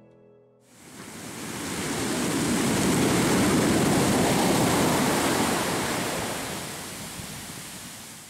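Sea surf washing up the sand as foam: a steady rush of water that swells over the first couple of seconds and then slowly fades away.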